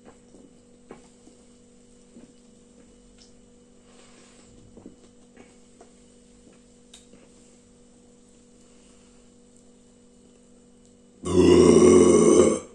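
Faint gulping as a man drinks fizzy cola from a plastic bottle, then a loud burp near the end, lasting about a second and a half.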